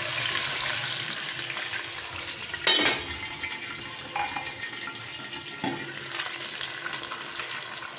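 Milk hitting hot oil in a steel karahi, sputtering and sizzling loudly, the hiss slowly easing off. About three seconds in, a metal lid is set on the pan with a ringing clank, and the sizzling goes on under it.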